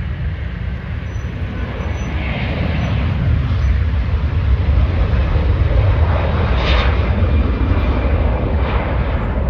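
Airbus A330-300 airliner with Rolls-Royce Trent 700 engines taking off: a loud, deep jet rumble that swells over the first several seconds as the aircraft lifts off and climbs, then holds.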